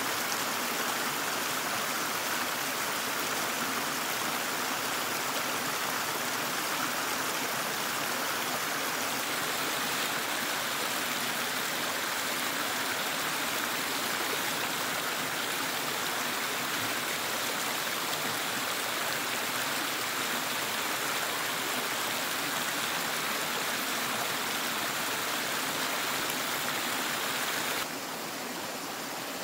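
A small stream rushing over rocks in a white-water cascade, a steady rush; near the end it drops suddenly to a quieter level.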